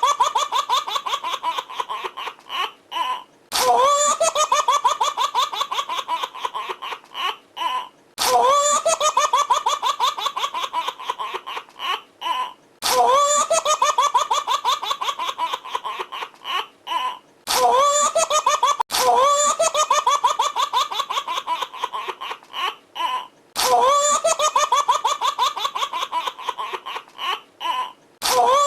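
A baby laughing in quick, high-pitched giggling pulses. The same short laugh repeats over and over, about every four and a half seconds with a brief pause between.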